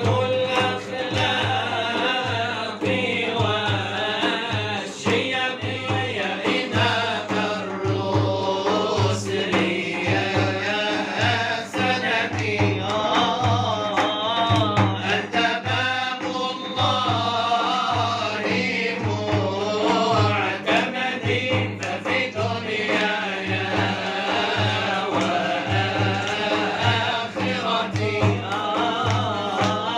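Male voice chanting an Arabic devotional song (inshad) in long, wavering melismatic lines over a steady low drum beat.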